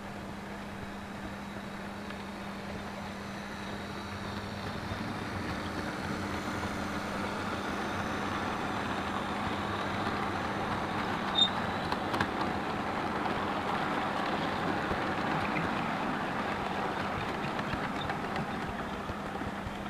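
Model passenger cars rolling along the layout's track: a steady rolling rumble that slowly grows louder, with one sharp click about eleven seconds in.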